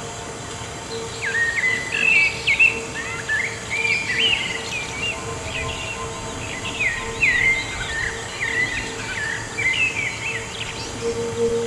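Songbirds singing outdoors: a run of quick chirps and short sliding notes that keeps going throughout, over a steady low hum.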